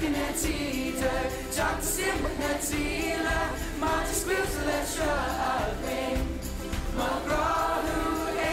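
Music: a song with voices singing together over steady accompaniment.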